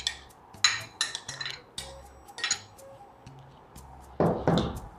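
Kitchen utensils and a bowl clinking as cut mango pieces are added to the fruit mix: a string of light clinks and taps, then a louder scraping rustle about four seconds in.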